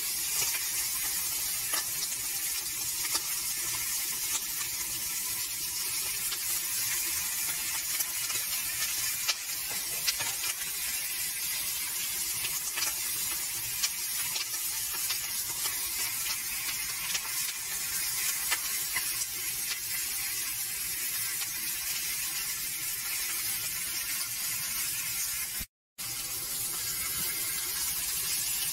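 Flour-dusted Atlantic herring sizzling in hot oil in a frying pan: a steady hiss with small crackles and pops. It breaks off for a moment near the end.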